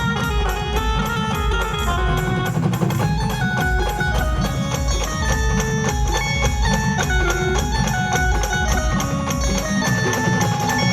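A brass band ('band party') playing an instrumental introduction: held melody notes over a steady drum beat.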